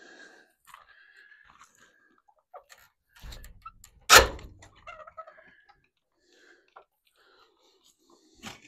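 An old building's door being worked open: short squeaks from its hinges, a loud thump about four seconds in, and a sharp knock near the end.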